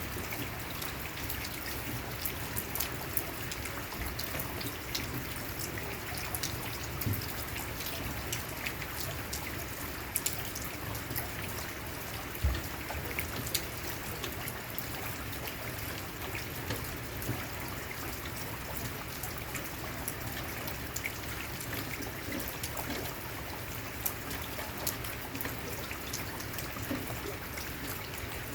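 Light rain pattering steadily, with many small, sharp drop ticks scattered through it.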